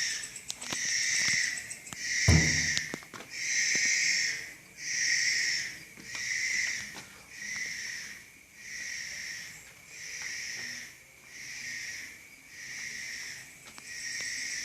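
A hissing, wheezing call repeated about once every 1.2 seconds in a steady rhythm, growing a little fainter midway, with a single short knock about two seconds in.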